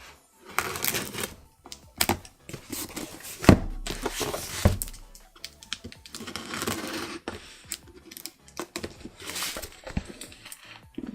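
Cardboard collectible-figure box being handled and opened: rustling and scraping with sharp clicks and taps, and a louder knock about three and a half seconds in.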